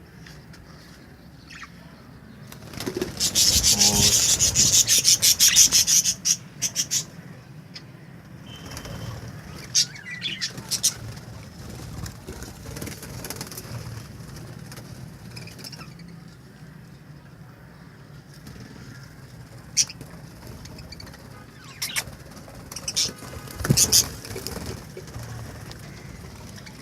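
Budgerigars fluttering and chirping: a loud flurry of rapid wingbeats from about three to six seconds in, then scattered chirps and clicks, and another short flurry near the end.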